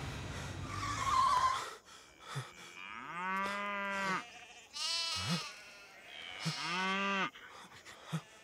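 A herd of zebu cattle mooing: three long moos a second or so apart, with a few shorter calls between them. They follow a burst of background music that cuts off about two seconds in.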